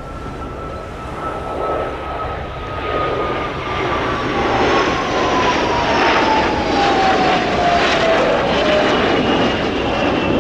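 Two Blue Angels F/A-18 Hornet jets flying past in close formation: the jet roar grows louder through the pass while a thin engine whine falls steadily in pitch as they go by.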